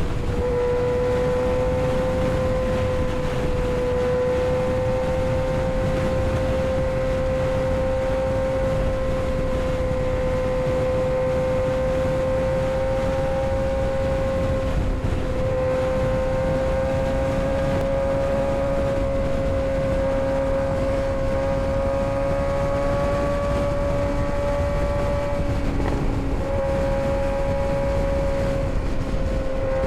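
Kawasaki ZX-6R 636 inline-four engine pulling at a steady, fairly high pitch while riding, with small shifts in pitch twice. Heavy wind rush on the microphone runs underneath.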